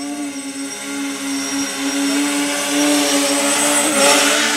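450-size quadcopter's four SunnySky brushless motors and propellers humming steadily, growing louder as the quad descends and comes in close to land.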